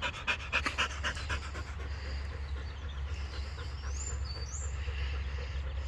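A dog panting fast, about five breaths a second, fading after the first second or so. Birds chirp briefly about four seconds in.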